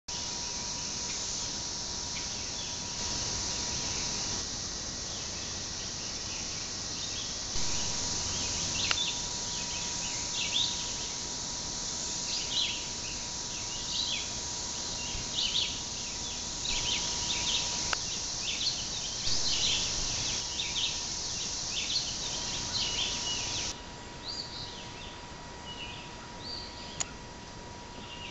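Steady high-pitched drone of insects in the woods, with many short bird chirps over it through the middle. The insect chorus grows quieter near the end.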